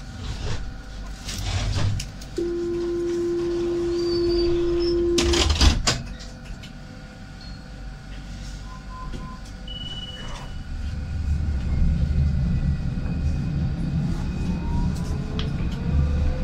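Alstom Citadis 302 tram at a stop: a steady door-closing warning tone sounds for about three seconds, and the sliding doors shut with a thump. Some seconds later the tram pulls away, its traction motors rising in a whine over a low rumble.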